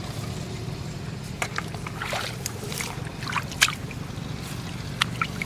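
Water sloshing, with scattered small splashes and clicks, over a steady low hum.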